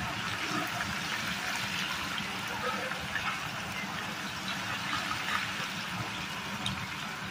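Chicken kabab pieces deep-frying in hot oil in an iron kadai: a steady sizzle with many small crackles.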